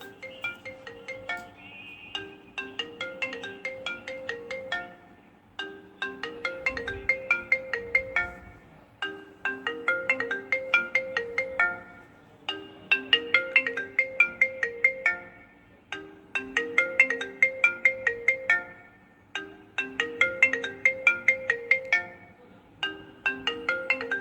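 A phone ringing with an iPhone ringtone: a short tune of quick notes, repeated about every three and a half seconds.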